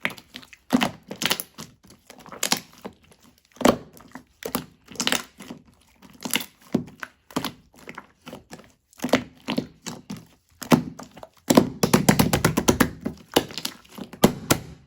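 Soft slime being squished and pressed by hand, giving irregular sticky pops and clicks, with a fast flurry of pops near the end.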